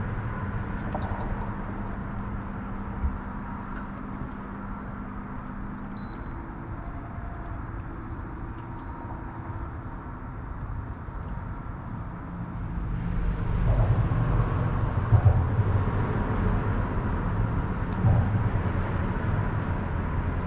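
Electric trolling motor running with a steady hum while wind buffets the microphone with a low rumble. The wind gets louder about two-thirds of the way through.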